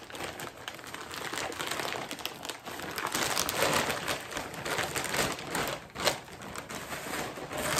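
A plastic mailer bag being torn open and rummaged through, its plastic crinkling and rustling, with one sharper snap about six seconds in.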